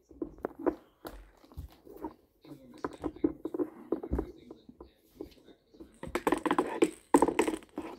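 Irregular clicks, knocks and rattling of hard plastic parts as a pressure washer's hose and spray lance are handled and fitted to its plastic frame, busier about six seconds in.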